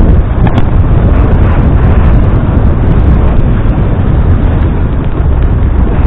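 Heavy wind buffeting on the microphone of a camera moving along a rough lane: a loud, steady rumble with no clear engine note.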